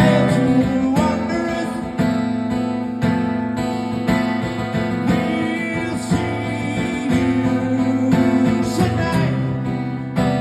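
Music led by a strummed acoustic guitar, with chords struck about once a second.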